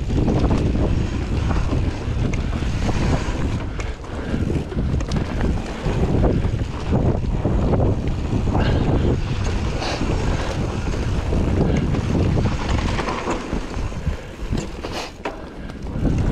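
Wind buffeting the microphone as an Orange P7 steel hardtail mountain bike runs fast down a dirt singletrack, with tyre rumble and scattered clicks and rattles from the bike over the bumps.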